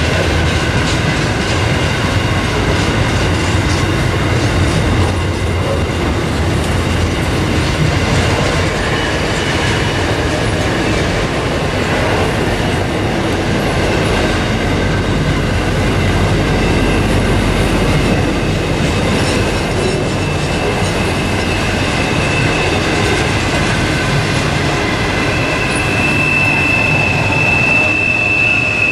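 Container freight wagons rolling past close by, a steady rumble and clatter of wheels on rail. Near the end a loud, high, steady wheel squeal comes in.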